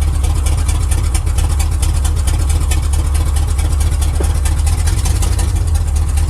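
A 350 Oldsmobile Rocket V8 in a 1979 Chevy pickup idling steadily in gear, with no torque-converter clunk standing out.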